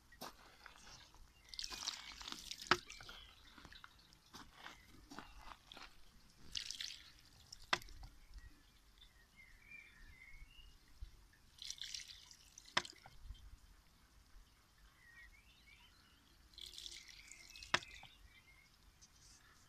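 Bamboo shishi odoshi (sōzu) working: water trickles in from a copper pipe, the pivoting bamboo tube tips and spills with a short splash, then swings back and knocks sharply. A knock comes about every five seconds.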